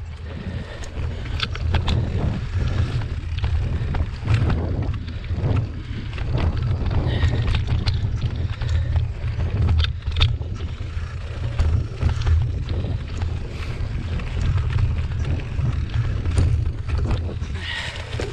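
Mountain bike ridden along a rough forest singletrack, heard from a camera mounted on the bike or rider: wind buffeting the microphone as a steady low rumble, with frequent clicks and knocks as the bike jolts over the ground.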